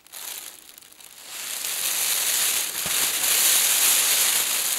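Foil emergency space blanket crinkling as it is handled and drawn down over a seated person. The dense crackly rustle builds about a second in and keeps going.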